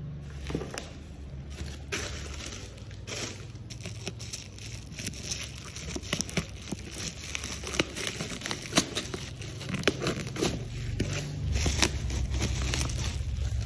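Plastic wrapping and cardboard packaging being handled and pulled open by hand: irregular crinkling, rustling and sharp crackles.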